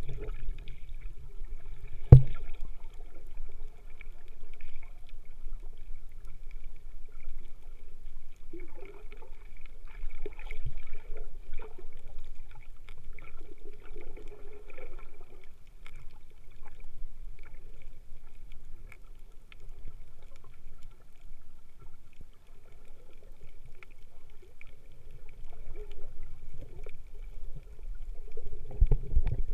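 Muffled water noise picked up by a camera held underwater: a steady low rumble with slow swells of sloshing that come and go as the snorkeler swims, and one sharp knock about two seconds in.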